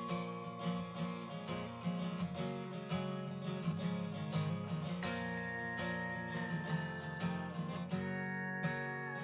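Background music: strummed acoustic guitar with a sliding lead guitar line over it.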